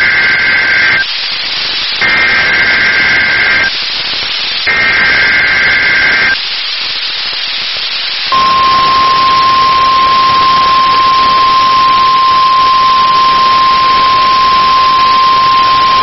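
NOAA Weather Radio relaying an Emergency Alert System required monthly test over steady radio hiss. Three bursts of two-tone SAME header data, each about a second and a half long with about a second between them, the first ending about a second in. From about eight seconds in comes the steady single-pitch 1050 Hz weather radio alert tone.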